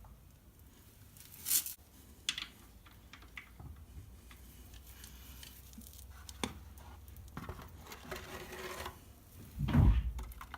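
Scattered clicks, knocks and rustling from handling things, with a short rush of noise near the end followed by a heavy low thump.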